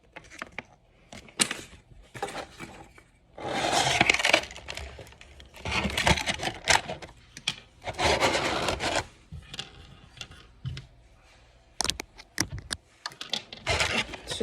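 Plastic-and-cardboard toy packaging being handled and pried at by hand: several second-long bursts of scraping and rubbing with sharp clicks in between.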